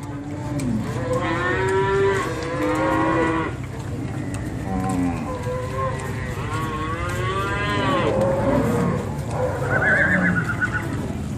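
A herd of cattle on the move, many cows mooing in long calls that overlap one after another over a steady low background noise.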